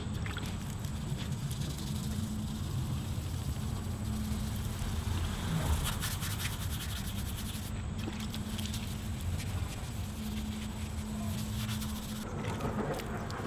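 Fine-grit wet sanding of fresh clear coat on a car body panel: steady rubbing of wet sandpaper over the paint, somewhat more scratchy about six seconds in.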